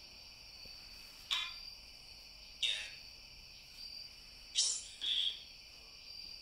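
A steady high chorus of insects, crickets by its sound, trilling without a break. Four short, sharp noises cut through it, about a second, two and a half, four and a half and five seconds in.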